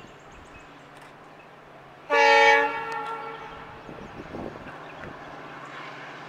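WDP4D diesel locomotive sounding one short horn blast, about half a second long, about two seconds in, trailing off briefly afterwards. It sounds over the faint steady running of the approaching train.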